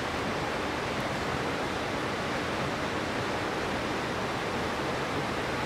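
Whitewater rapids of the Potomac River rushing over rocks: a steady, even rush of water.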